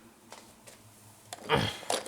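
A few light clicks, then a short scraping rustle about one and a half seconds in, as a derailed wooden toy train is handled and set back on its track.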